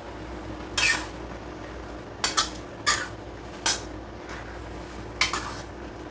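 A metal utensil clinking against cookware about seven times, in uneven single and double knocks, as the noodles are stirred. A faint steady hum runs underneath.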